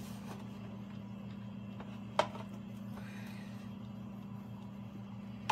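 Steady low hum with a single sharp click about two seconds in: a basting spoon knocking against the enamel roasting pan while sauce is spooned over a roast turkey.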